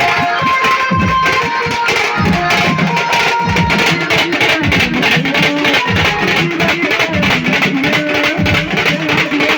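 Live band music: an instrumental passage with a melody line over a steady drum beat.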